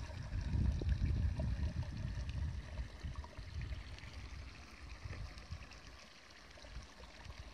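Flowing water, a steady rush. Wind rumbles on the microphone, loudest in the first three seconds and easing off after that.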